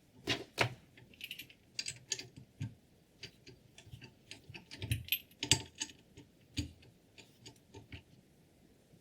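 Irregular light clicks and knocks, about twenty of them, from scissors and sharpener parts being handled. The loudest come near the start and about five and a half seconds in.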